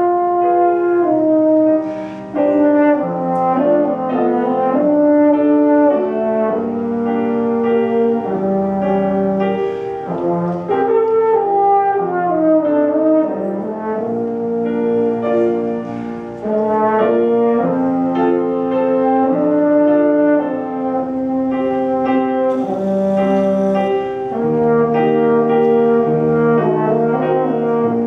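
French horn playing a melody of held notes that change every second or so, with a quicker run of moving notes around the middle.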